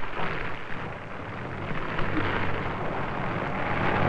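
Burning mallee scrub crackling steadily, with an engine running low underneath.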